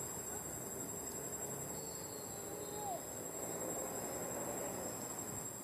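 Insects droning steadily at a high, even pitch, with a few faint short calls over it.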